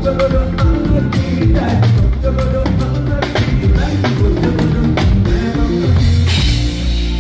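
Live band playing an instrumental groove, the drum kit to the fore with bass drum and snare strokes over a bass line; a cymbal wash swells near the end.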